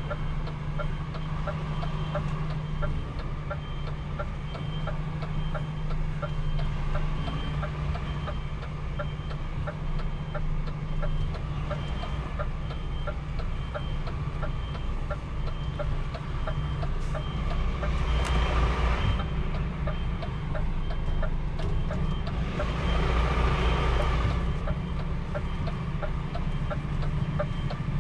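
A truck's reversing alarm beeps steadily over its diesel engine running at low speed. Twice, near two-thirds of the way through and again a little later, the engine grows louder with a rush of noise.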